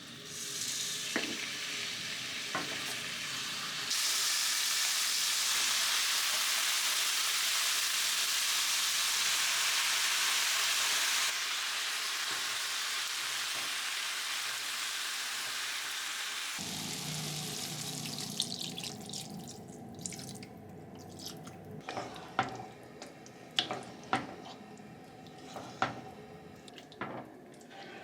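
Kitchen sounds: a steady hiss that grows louder about 4 seconds in and fades away over the second half, then light clinks and knocks of utensils or cookware.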